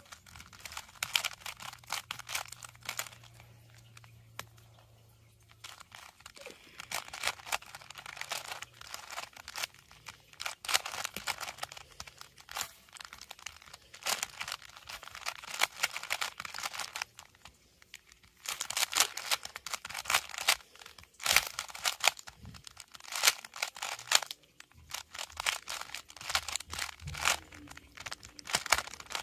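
Plastic 3x3 Rubik's Cube being turned fast during a timed speedsolve: rapid clicking and clacking of the layers in dense runs, with a few brief pauses.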